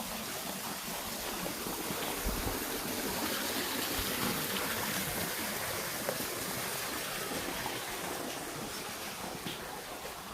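Rushing stream water, a steady wash that grows louder over the first few seconds and eases off again toward the end.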